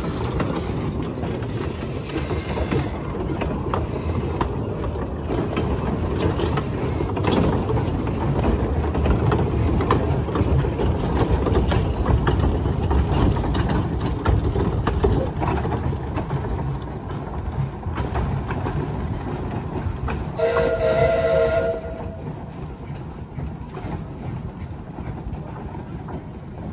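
A train of open wooden passenger cars rolling past on the rails with a steady rumble and clicking of wheels, then drawing away. About 20 seconds in, the 0-4-0 steam locomotive gives one whistle blast of a second or so, sounding several pitches at once.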